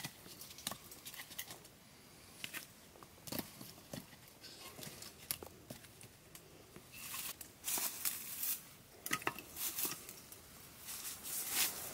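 Dry grass and twigs rustling and snapping as they are handled, in irregular crisp clicks and short rustles, busiest about seven to nine seconds in and near the end.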